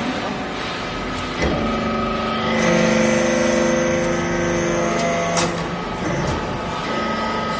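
Hydraulic metal-swarf briquetting press running: a steady machine hum with several steady tones that grow stronger from about two and a half seconds in to about five and a half seconds, while the ram presses down into the metal chips. A sharp click about a second and a half in and another just after five seconds.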